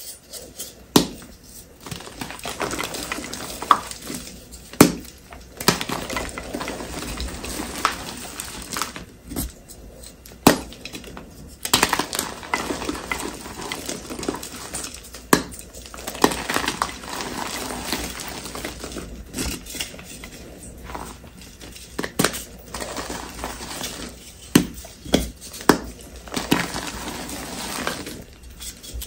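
Blocks of reformed gym chalk being crushed and crumbled: a continuous dry crunching and crackling, with a sharp snap every second or two as pieces break.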